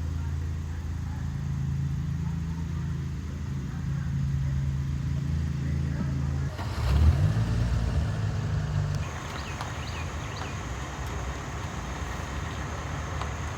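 A car's engine running with a low, steady hum. About seven seconds in it grows louder and shifts in pitch, and from about nine seconds an even hiss of road noise takes over.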